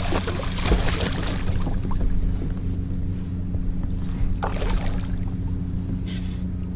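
A hooked redfish thrashing at the surface beside a kayak, splashing in the first second or so and again about four and a half seconds in, over a steady low hum.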